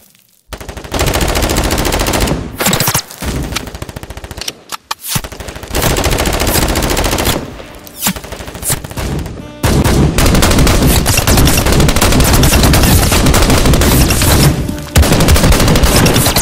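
Rapid automatic gunfire in several bursts with short breaks, the longest lasting about five seconds in the second half.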